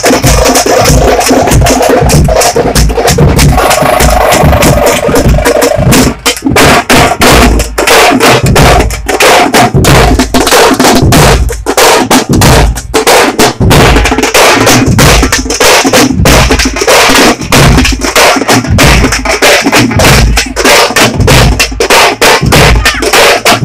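A band of tamate drums and large bass drums on wheeled stands playing a loud, dense rhythm together, the strokes close-up and heavy in the low end.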